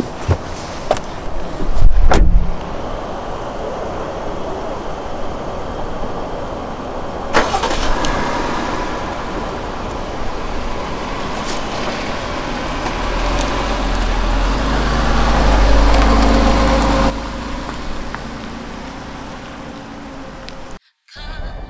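Car and road-traffic sounds, with a heavy low thump about two seconds in. A deep engine rumble builds and then cuts off abruptly about seventeen seconds in.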